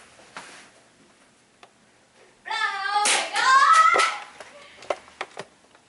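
A voice calling out in a wavering, sing-song pitch for about a second and a half, starting about two and a half seconds in, followed by a few sharp clicks.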